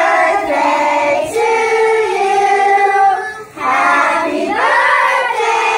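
A group of voices, children's among them, singing together in long held notes. The singing breaks off briefly about three and a half seconds in, then goes on.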